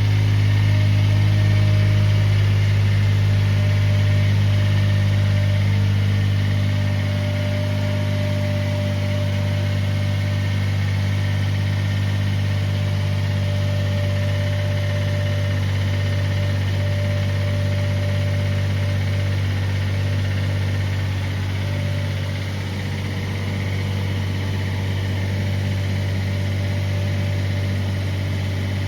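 Suzuki Jimny JB64's 660 cc turbocharged three-cylinder engine running steadily at idle, the engine noise its owner treats as abnormal. It becomes slightly quieter about a quarter of the way in.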